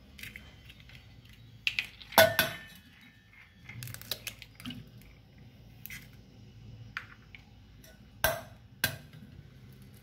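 Raw eggs knocked against the rim of a stainless steel bowl and cracked open: a run of sharp clicks and taps at irregular intervals, the loudest about two seconds in.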